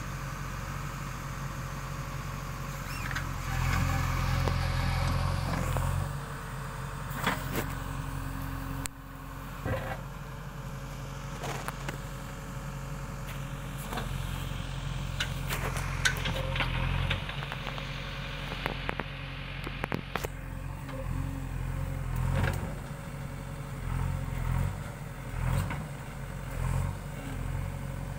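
JCB backhoe loader's diesel engine running steadily, revving up for a couple of seconds about four seconds in. Scattered sharp knocks throughout from the working machine.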